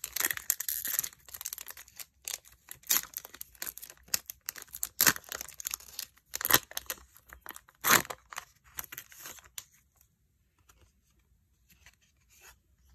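Foil wrapper of a Pokémon trading card booster pack torn open and crinkled by hand, in a string of sharp rips and rustles with several loud rips. The sounds stop about three-quarters of the way through, leaving only a few faint ticks.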